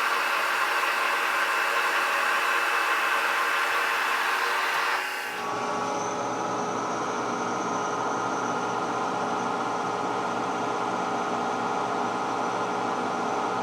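Old K&T horizontal milling machine running while a shell mill takes a light cut of about 15 thousandths deeper in a counterbore. It makes a steady, hissy machine noise that changes abruptly about five seconds in to a lower, steady hum with faint tones.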